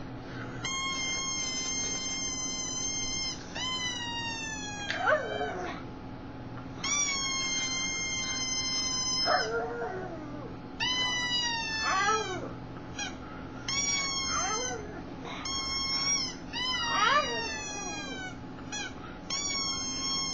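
Pug whining in long, high, steady squeals of two to three seconds each, repeated with short gaps, mixed with shorter whimpers that drop in pitch.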